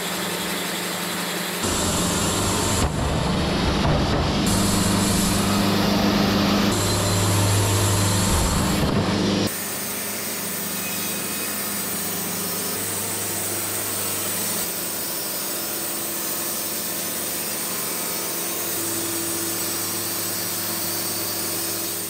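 Wood-Mizer band sawmill running, its band blade cutting through a cherry log over the steady drone of the mill's motor. The sound jumps abruptly several times in the first half, then runs steady.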